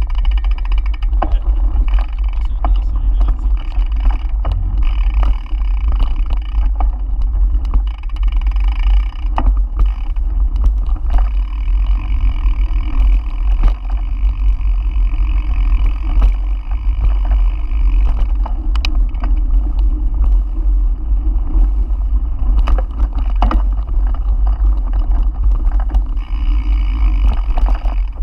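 Heavy wind rumble on a camera microphone carried along on a mountain bike riding a dirt woodland trail, with tyre noise on the ground and frequent clicks and rattles as the bike goes over bumps.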